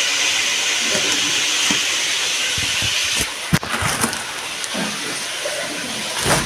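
A steady hiss that cuts off about three seconds in, then crinkling and a few knocks from plastic grocery bags and a plastic-wrapped diaper pack being handled.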